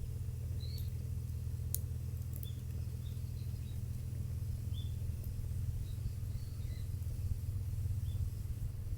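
Small birds chirping now and then, short high calls scattered through, over a steady low rumble. A single sharp click just under two seconds in.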